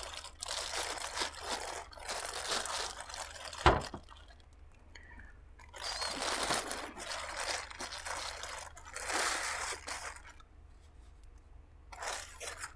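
Clear plastic bag crinkling and rustling in several bursts as it is pulled off an LED grow light panel, with one sharp knock a little under four seconds in.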